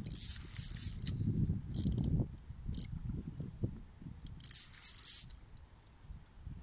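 Fishing reel's drag buzzing in several short bursts, the longest about a second, as a hooked sturgeon pulls line. Wind rumbles on the microphone.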